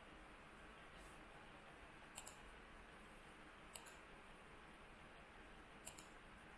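Computer mouse clicking: three faint clicks, each a quick double tick, about one and a half to two seconds apart, over a quiet room hiss.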